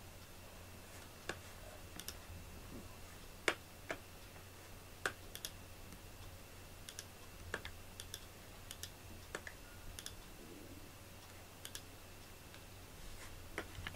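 Quiet room with scattered faint clicks and taps, about a dozen at irregular intervals, over a low steady hum.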